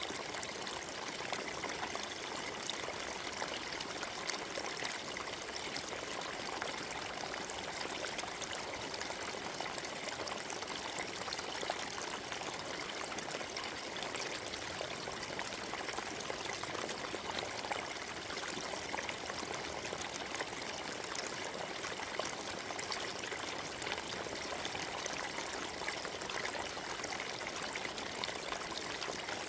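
Forest stream trickling and babbling over stones, a steady splashing rush of water.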